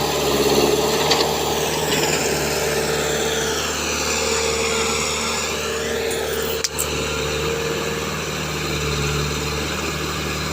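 Excavator's diesel engine running steadily while it works, with a single sharp knock about two-thirds of the way through.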